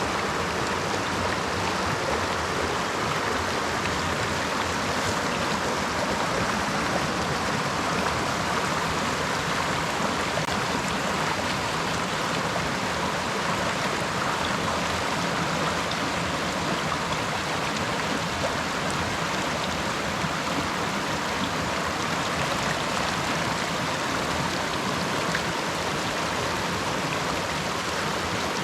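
Creek water running in a steady, even rush.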